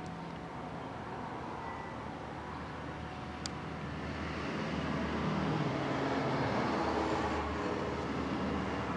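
A passing road vehicle: a steady rumble and road noise that grows louder about halfway through and eases off near the end. A single sharp click comes a few seconds in.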